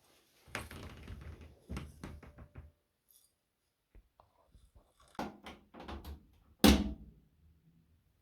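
Objects being handled: a run of light knocks and clatters, a short pause, then more knocks ending in one loud thud about two-thirds of the way through.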